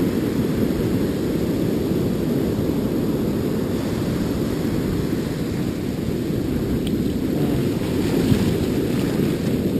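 Steady low rumble of ocean surf, with foamy water washing around the legs in the shallows.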